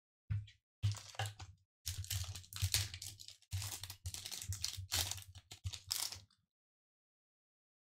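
Foil booster-pack wrapper of a Pokémon trading card pack crinkling and tearing open in a run of irregular rustles, stopping about six seconds in.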